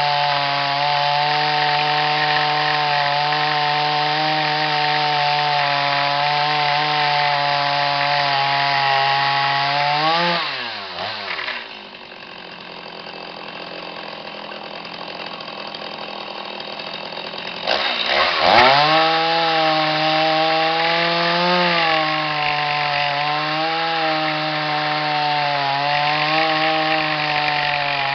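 Chainsaw running flat out as it cuts along a log in a chainsaw mill. About ten seconds in, its pitch falls away and it goes quiet for several seconds, then revs quickly back up to full speed and runs on with a slight wavering in pitch.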